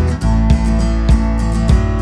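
Background music: strummed guitar over a steady beat of about two strokes a second.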